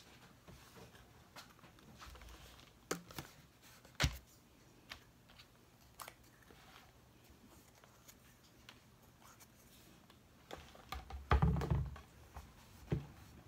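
Scattered small knocks, taps and clicks of things being handled on a work table, with one sharp knock about four seconds in and a short burst of heavier handling noise near the end.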